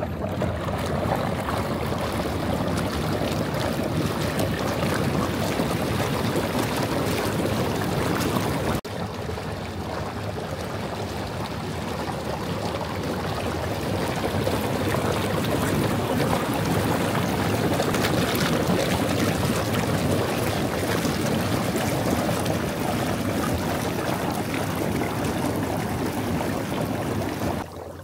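Hot tub massage jets churning and bubbling the water, with a steady low hum from the machinery underneath. The sound dips sharply for a moment about nine seconds in, then goes on.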